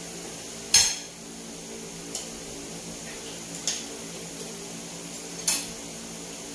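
Eating utensils clinking against a plate during a meal: a few short, sharp clinks a second or two apart, the first, about a second in, the loudest, over a steady low hum.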